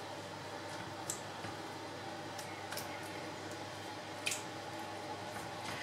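Basting brush spreading sticky barbecue sauce over pork spareribs on a metal baking tray: soft wet squishing with a few light clicks, over a steady background hum.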